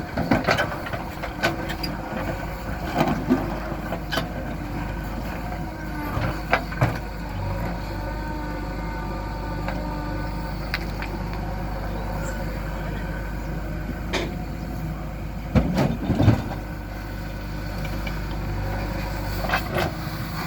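Diesel engine of a JCB 3DX backhoe loader running steadily while it works, with sharp knocks and clanks now and then, loudest in a cluster about three-quarters of the way through.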